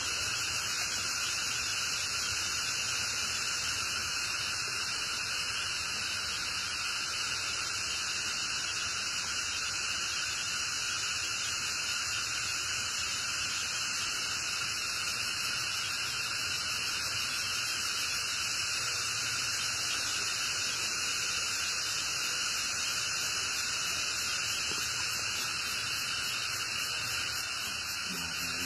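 Steady, even hiss with no separate sounds in it, the same level throughout.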